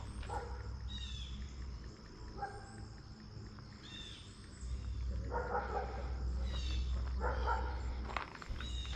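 Outdoor ambience: birds chirping in short falling calls over a steady high insect drone, with a low rumble that swells about halfway through.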